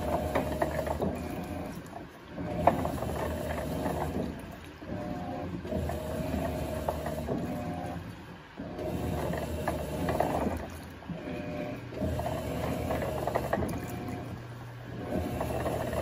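Electrolux LTD06 top-loading washing machine in its wash cycle, the motor agitating the load in runs of about two to three seconds, each broken by a short pause as the drive changes direction.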